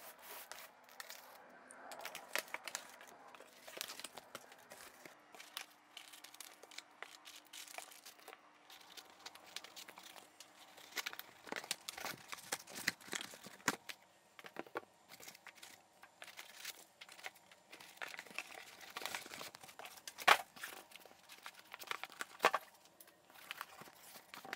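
Cardboard shipping box and foam packing being opened and emptied: packing tape tearing, cardboard flaps and foam inserts rustling and scraping, with scattered knocks as parts are lifted out and set down, the sharpest about twenty seconds in.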